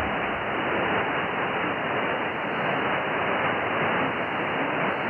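Yaesu FTdx10 shortwave receiver in lower sideband giving a steady hiss of static, narrowed by the receiver's filter, with hardly any audio from the weak broadcast station being tuned in under it.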